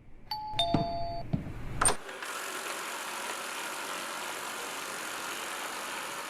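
Electronic two-note chime, the second note lower than the first, with a few light clicks around it. From about two seconds in, a steady even hiss-like noise follows.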